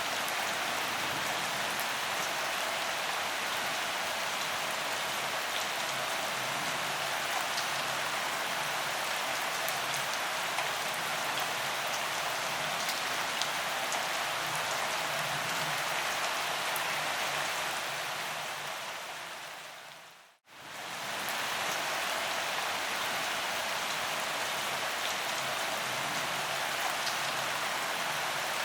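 Steady rain falling, an even hiss with scattered light drop ticks. About two-thirds of the way through it fades down to silence for a moment and fades straight back in.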